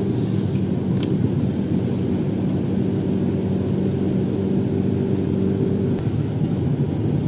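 Road vehicle under way, a steady low engine and road drone; a held hum in it fades out about six seconds in.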